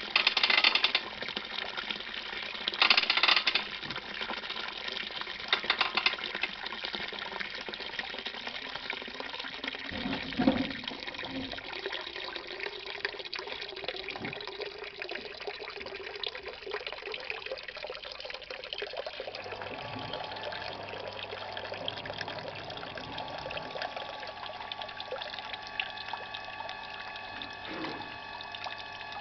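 Grape juice pouring in a stream from the spout of a wooden basket wine press and splashing into a plastic tub of foamy juice, with a few louder splashes early on and a dull knock about a third of the way in. About two-thirds of the way through, a steady low hum comes in under the pouring.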